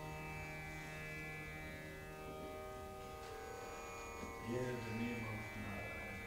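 A steady drone of many held tones in an Indian classical style. About four seconds in, a man's low voice begins chanting over it in long, arching notes.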